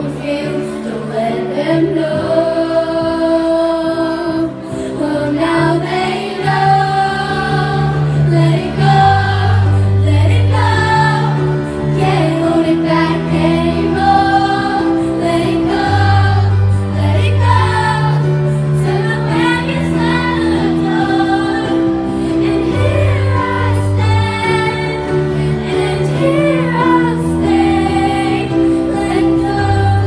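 A woman singing a pop song into a microphone over backing music with a bass line, amplified through the stage PA speakers.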